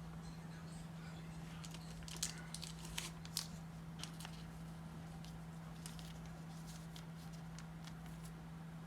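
Faint crinkling and light clicks of a trading card being slid into a plastic card sleeve, mostly between about two and four seconds in, over a steady low hum.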